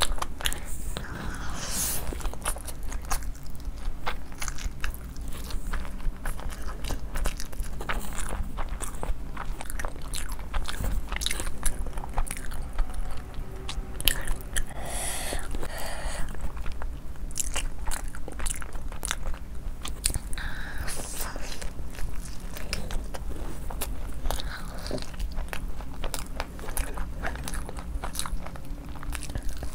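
A person biting into and chewing crispy fried chicken: a dense run of sharp crunches and crackles from the fried coating, coming in several louder clusters.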